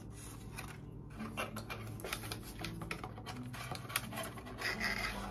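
Crinkling of plastic-wrapped pregnancy test sticks and an opened cardboard box being handled, making a run of small irregular clicks and rustles that gets busier near the end.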